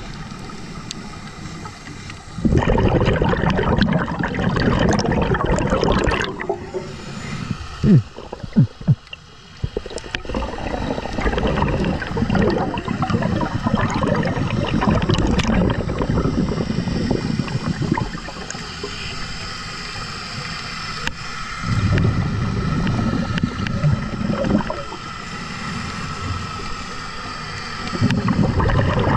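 A scuba diver breathing through a regulator underwater. Long bubbling rushes of exhaled air come about two seconds in, again around twenty-two seconds, and once more near the end, with quieter hiss and gurgling between. A couple of short squeaks come about eight seconds in.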